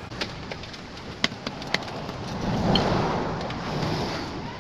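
A few sharp clicks, then a road vehicle passing by, its noise swelling and fading over about two seconds.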